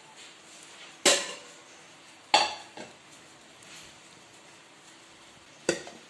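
A serving spoon knocking against a cooking pot while gravy is scooped and spread over the rice: three sharp clinks about a second in, near the middle and near the end, the middle one followed by a lighter tap.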